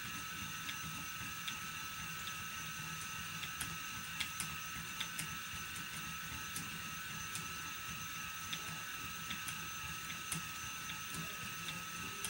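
Phoenix electric motor spinner running steadily as cotton is spun onto the bobbin: an even, high-pitched motor and flyer whine with faint, irregular ticks.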